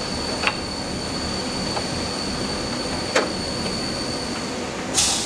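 Steady workshop noise with a thin high whine. Light metal clicks sound twice as the tow hook and its long bolt are worked into the truck's frame, and a short loud hiss comes at the very end.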